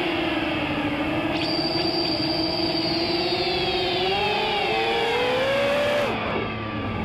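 The four brushless motors (Lumenier 2206 2000kV) of an FPV racing quadcopter spin two-blade 6-inch props, heard from the camera on the quad as a steady buzzing whine. The pitch rises for a second or so as it climbs, then drops away and goes quieter near the end.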